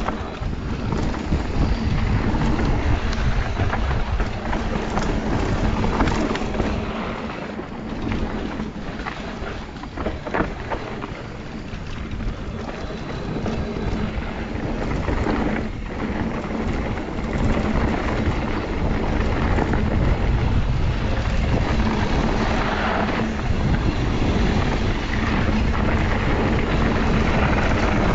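Wind buffeting the microphone of a riding mountain biker's camera on a downhill run, mixed with tyres on dirt and the bike rattling over bumps in many short knocks. It drops a little quieter for a few seconds about a third of the way in, then builds again.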